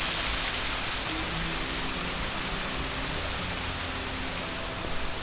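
Steady rush of a small waterfall running low on water.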